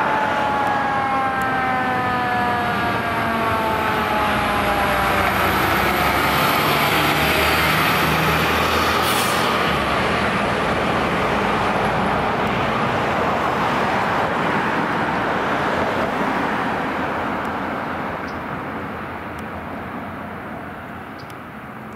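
Pierce tiller ladder fire truck responding: a siren falling slowly in pitch over the first few seconds, over loud engine and tyre noise, with a short hiss about nine seconds in. The truck noise fades away over the last several seconds.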